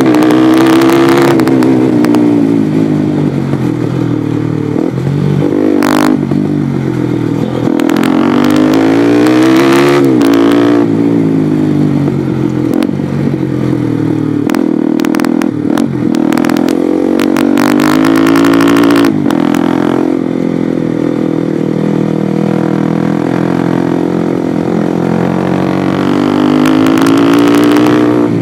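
Bajaj Pulsar NS200's single-cylinder engine through a replica Akrapovic aftermarket silencer, heard from the rider's helmet while riding. The revs climb and fall several times, with a deep booming note and a few sharp clatters along the way.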